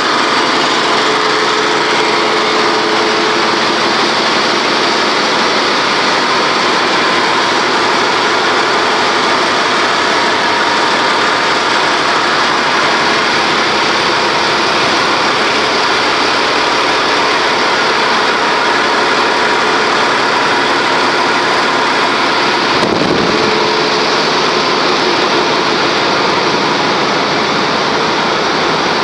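Loud, steady machinery noise of a ship's engine room, with diesel engines running. A single short knock about 23 seconds in.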